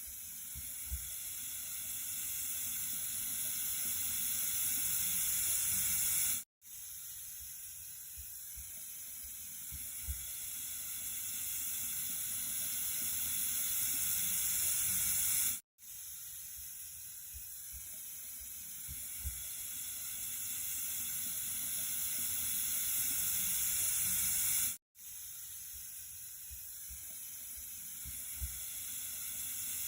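Flowing water making a steady hissing rush, mostly high-pitched. It grows slowly louder over about nine seconds, drops out for a split second and starts again, three times in a row, with a faint tick once in each cycle: a short recording looped.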